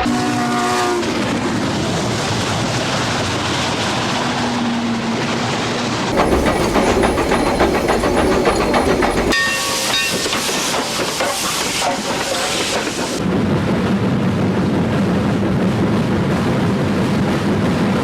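Dubbed steam train sound effects: a steam locomotive running with steam hiss and rail clatter, with short whistle tones. The sound changes abruptly several times, as separate recordings are spliced together.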